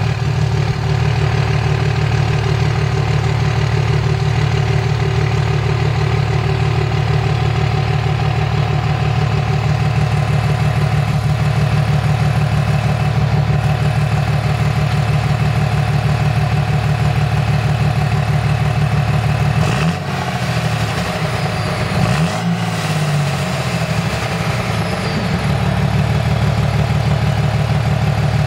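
2005 Dodge Ram 2500's 5.9-liter Cummins inline-six turbodiesel idling through its exhaust and muffler bypass, a steady, rapidly pulsing note. About twenty seconds in the note wavers and drops in level for a few seconds, then comes back to full strength, as the bypass butterfly valve is switched.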